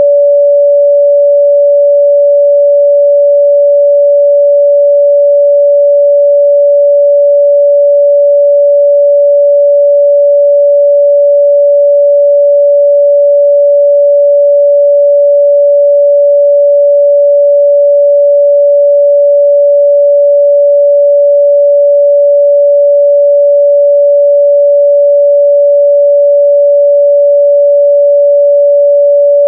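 Pure 574 Hz sine-wave test tone, a single steady mid-range pitch held at constant loudness.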